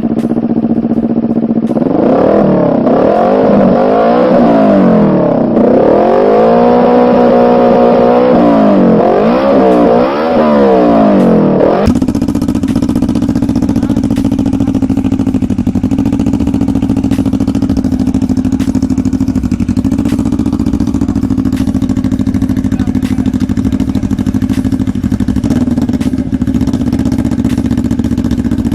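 CFMOTO NK400/GT400 parallel-twin engine running through an aftermarket muffler: revved up and down in a series of quick blips for about twelve seconds, then an abrupt switch to a steady, even engine note held to the end.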